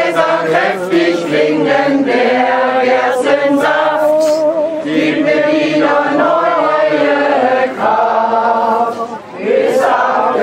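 A group of people singing together, a crowd singalong with many voices at once, with a brief break about nine seconds in before the voices come back in.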